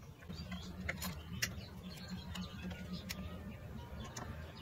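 Plastic ink dampers being pressed and snapped onto the print head of an Epson L3116 ink-tank printer: a few light plastic clicks and handling noises, the sharpest about a second in and again around three seconds in.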